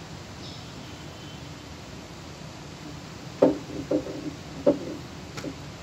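Green PPR plastic pipe and elbow fitting knocking against a PPR fusion welder's heating sockets as they are handled: three sharp knocks in just over a second, then two faint clicks, over a steady low hum.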